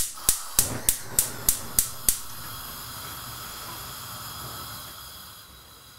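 Gas hob's spark igniter clicking about three times a second for two seconds while the burner knob is turned, then the lit burner hissing steadily, growing a little fainter near the end.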